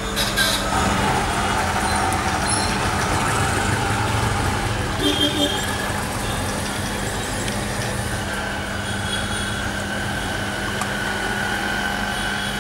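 Steady street noise of passing traffic, with a constant low hum underneath and three short, louder sounds about five seconds in.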